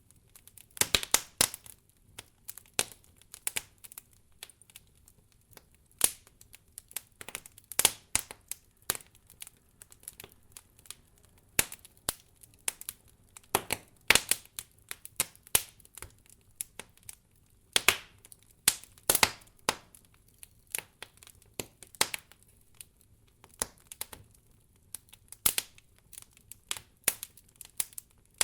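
Fire crackling: irregular sharp pops and snaps, sometimes in quick clusters of several, with short quiet gaps between them.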